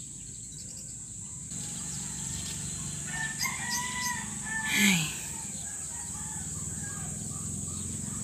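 A rooster crowing, about three to five seconds in, the loudest sound here, over a steady high-pitched whine and a low steady hum.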